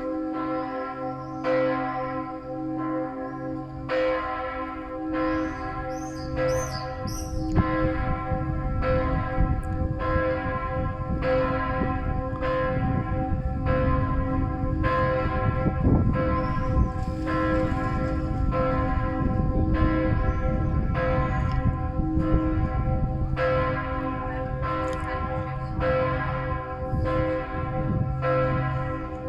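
Several church bells ringing together in a full peal, their strikes coming about once a second and overlapping into a continuous ring of several pitches: the midday ringing.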